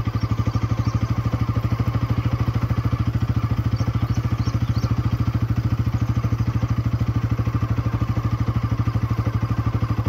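Motorcycle engine running steadily at low speed, its exhaust beating evenly and fast.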